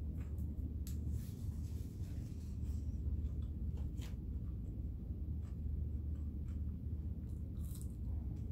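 Quiet eating and food handling: light rustling and a few small clicks from food and its packaging, the sharpest click about four seconds in, with soft chewing of fries and a BBQ sandwich. A steady low hum runs underneath.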